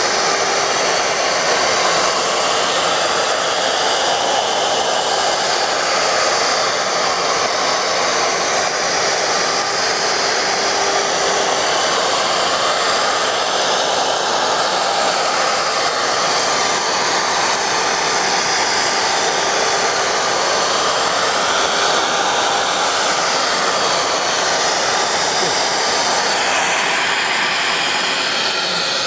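Plunge router running at speed while it is slid across an end-grain cutting board on a flattening sled, taking very shallow skimming passes of about a tenth of a millimetre. Its steady whine sits over the rush of a shop vacuum that switches on automatically with the router.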